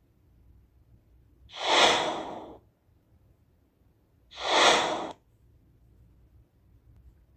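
Whoosh sound effect played back twice, about three seconds apart: each a short rush of airy noise that swells quickly and fades over about a second.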